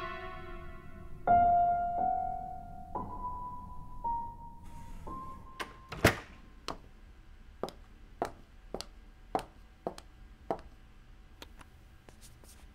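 Film score ending on a few slow, single piano-like notes about a second apart, each held and fading. From about halfway through, a series of sharp, separate clicks or knocks comes at uneven intervals, the loudest about six seconds in, over a faint held tone.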